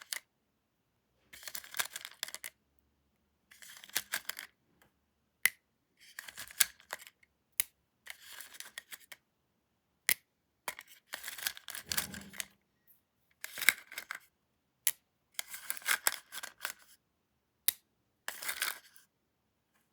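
Plastic candy packaging being handled, crinkling and tearing in short bursts separated by brief silences, with occasional single sharp clicks.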